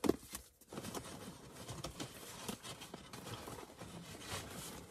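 Paper and cardboard rustling, with scattered light clicks and taps, as a gift box and its card are handled.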